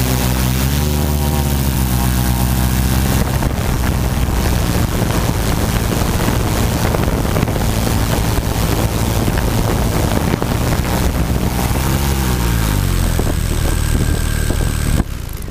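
Tarot quadcopter's electric motors and propellers whirring, heard up close from the onboard camera. The pitch climbs about a second in, runs rougher through the middle, falls away around the twelve-second mark as the craft comes down, and the sound drops off sharply just before the end as the motors cut after it touches down.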